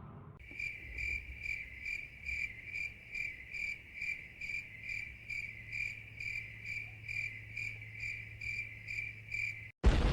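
Crickets chirping steadily on one high pitch, about two chirps a second. The chirping cuts off just before the end, when a loud, sudden sound begins.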